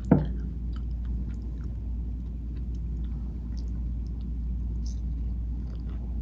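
Someone biting into and chewing a club sandwich, with faint small crunching and mouth clicks, over a steady low hum.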